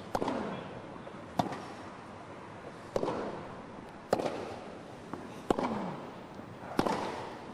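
Tennis rally: a ball struck by racquets six times, about every second and a half, each a sharp pop over steady crowd and court noise.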